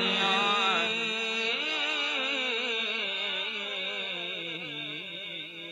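Male voice singing a naat unaccompanied into a microphone: a long melodic line with wavering pitch that gradually fades away.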